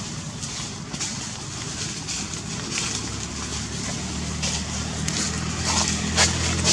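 A motor vehicle's engine hum comes in about halfway through and grows steadily louder, over an outdoor hiss with a few short crackles.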